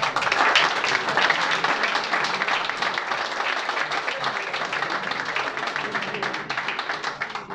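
Audience applauding: many hands clapping together in a dense patter that thins out near the end.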